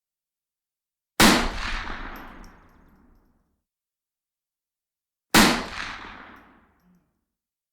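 Two rifle shots about four seconds apart, the first about a second in. Each is a sharp crack followed by a long echoing tail that dies away over about two seconds.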